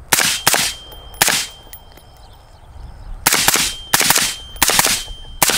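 Suppressed Bear Creek Arsenal AR-15 in 5.56 with an AAC SDN-6 suppressor firing seven shots, each a sharp report with a short ring after it. They come in two quick strings, three then four, with a pause of about two seconds between them.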